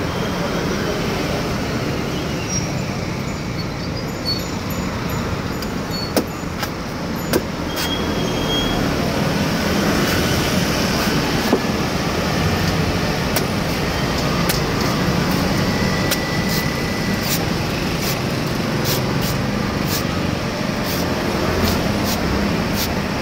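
Steady street traffic noise, with sharp knocks of a machete chopping into green coconut husks: a few scattered at first, then coming more often in the second half.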